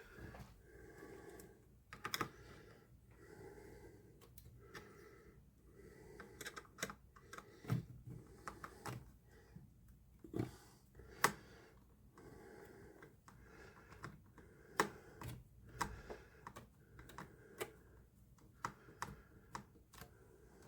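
Faint, irregular light clicks and taps of hands handling the plastic parts of a disassembled computer monitor around its small joystick control board.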